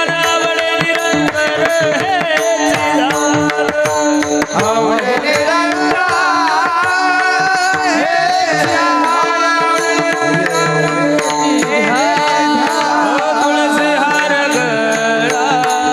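Marathi devotional kirtan music: a singer drawing out a long, ornamented melodic line over steady held drone notes and tabla strokes.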